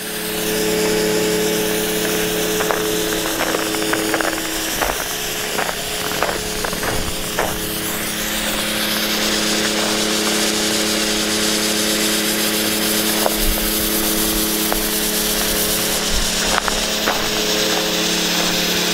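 A motor-driven machine running steadily: a hum under a hissing noise, part of the hum dropping away about five seconds in, with scattered light clicks.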